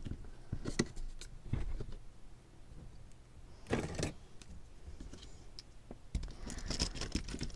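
Costume jewelry brooches being handled: scattered light clicks and knocks of metal pieces being picked up and set down, with a longer rustle about four seconds in and a busier run of clicks and rustling near the end.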